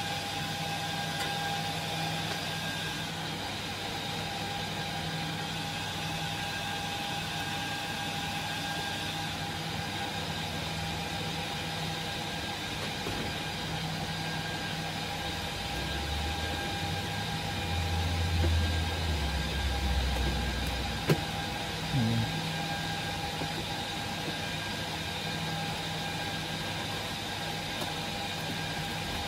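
Rack server's cooling fans running steadily, a constant whir with a few steady whining tones. In the middle a low rumble swells and fades over a few seconds, followed by a couple of sharp knocks.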